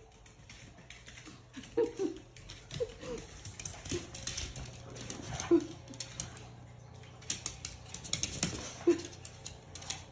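Small dogs' claws clicking and pattering on a hard floor as they scamper about and dig into a dog bed after a toy, with a few short dog vocal sounds mixed in.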